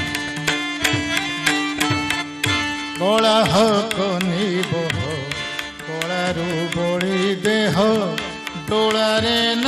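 Odissi classical music in raga Kirabani: mardala drum strokes over a steady harmonium drone. From about three seconds in, a male voice joins, singing gliding, ornamented phrases over the harmonium and drum.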